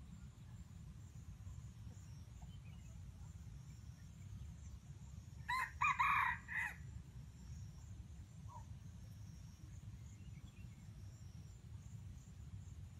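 A red junglefowl cock crowing once, about five and a half seconds in: a short crow of about a second, broken into three quick parts. A faint steady low rumble lies underneath.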